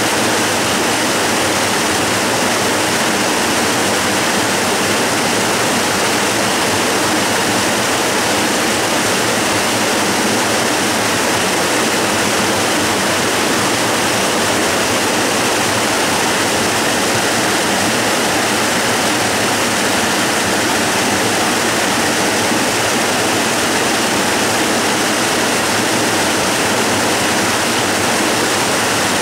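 Waterfall: water pouring over rock in a steady, unchanging rush.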